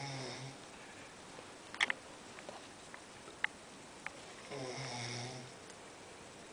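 Loud snoring from a sleeper. Two buzzing snores about four and a half seconds apart, each about a second long, the first ending just after the start. A few short sharp clicks fall between them, the loudest about two seconds in.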